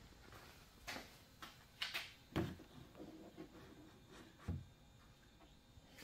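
Handling noise: a few scattered soft knocks and clicks, with quiet in between, as a tablet and nearby clutter are picked up and moved.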